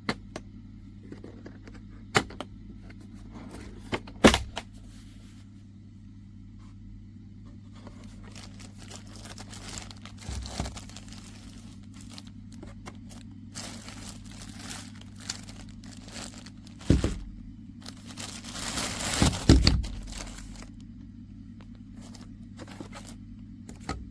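Plastic items and packaging being handled: scattered clicks and knocks with stretches of rustling and crinkling, the loudest knocks about four seconds in and twice in the last third, over a steady low hum.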